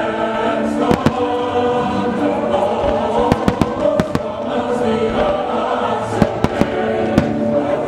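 Fireworks going off in many sharp bangs, bunched a few seconds in and again near the end, over sustained choir-like music.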